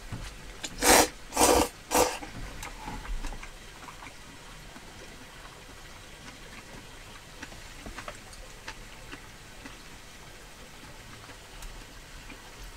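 A person slurping ramen noodles: three loud slurps in quick succession in the first two seconds, then only faint, scattered light clicks.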